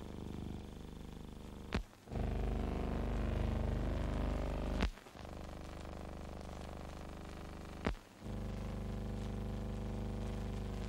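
Steady low hum and hiss of an old film soundtrack with no recorded sound, broken by a sharp click three times, about three seconds apart, where the shots are spliced.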